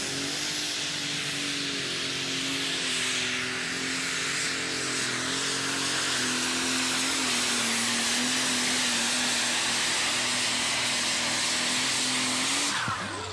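Super stock pulling tractor's turbocharged diesel engine running flat out under the load of a weight-transfer sled: a loud steady engine note with a strong hissing roar over it, the pitch sagging slightly midway as the sled bites. Near the end the sound falls away suddenly as the pull ends and the throttle comes off.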